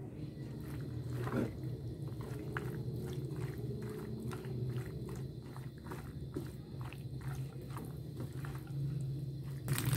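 Red silicone spatula stirring and tossing cooked macaroni in a nonstick wok: repeated soft scraping and squishing strokes, several a second. A steady low hum lies under the strokes.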